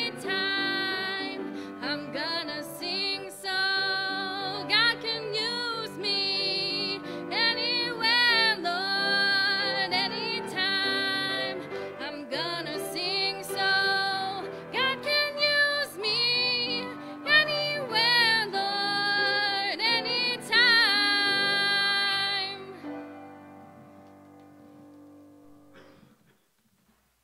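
A woman singing a gospel hymn solo with vibrato, accompanied by a grand piano. Her singing ends about 22 seconds in, and the piano's final chord rings on and fades away over the next few seconds.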